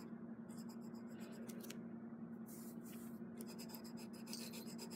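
An orange coloured pencil scratches across paper in rapid back-and-forth shading strokes, coming in runs with short pauses, as an area of a drawing is coloured in.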